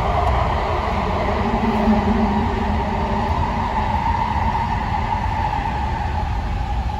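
AirTrain JFK car running along its guideway: a steady rumble and whir with a faint tone about two seconds in.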